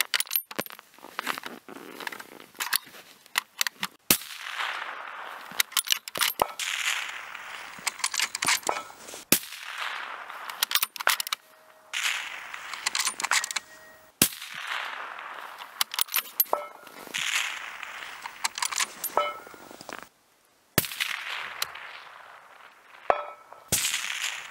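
Rifle shots several seconds apart, each a sharp crack. A short metallic ring from a distant steel target follows some of them about two seconds later. Many smaller clicks come between the shots.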